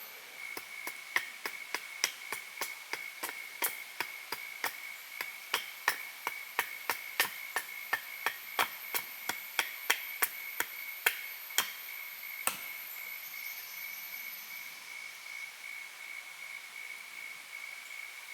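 Rapid series of sharp knocks of a tool striking wood, about two to three a second, stopping about twelve seconds in: typical of hammering or chopping at camp. A steady high tone continues underneath.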